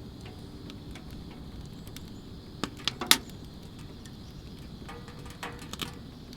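Soomloom VistaV wood-burning stove giving scattered sharp clicks and cracks over a steady low hiss. The loudest few clicks come about three seconds in.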